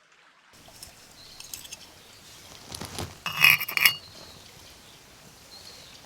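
Hard objects clinking and clattering, with a cluster of sharp clinks about three and a half seconds in that ring briefly.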